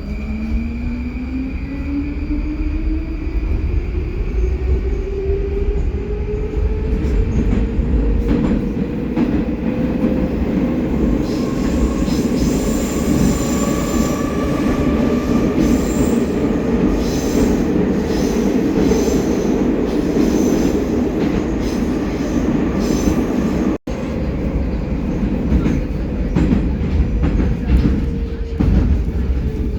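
Metro train pulling away and running through the tunnel, heard from inside the carriage. The traction motors whine, rising in pitch over the first ten seconds as the train accelerates, then give way to steady wheel-and-rail running noise with intermittent higher squealing. The sound cuts out for an instant about three-quarters of the way through.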